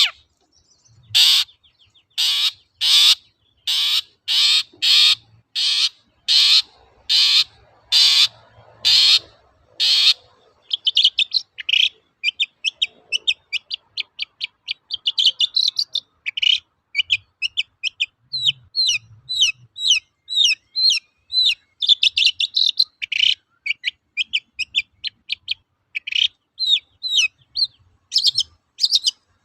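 Long-tailed shrike (cendet) singing: about fourteen harsh, rasping notes repeated roughly every two-thirds of a second, then, about ten seconds in, a fast run of short, high twittering notes.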